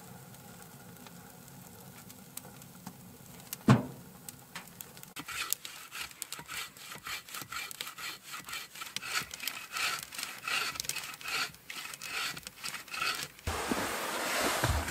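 Small wood fire of twigs crackling and popping in an open-doored steel wood stove, with one sharp pop about four seconds in and denser crackling from about five seconds in.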